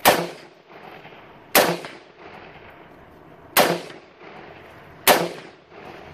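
Four single shots from a 7.62x39 AK-pattern rifle, fired one at a time about one and a half to two seconds apart, each followed by a short echo.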